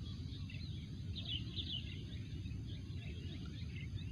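Birds chirping in quick high notes, busiest about a second and a half in, over a steady low outdoor rumble.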